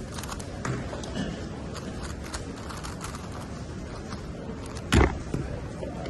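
Megaminx puzzle being turned fast, a steady stream of light plastic clicks. About five seconds in, a single loud thump as the solve ends, the puzzle is set down and the timer is stopped.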